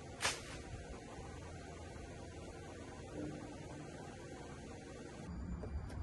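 A single sharp click about a third of a second in, over a steady low hum.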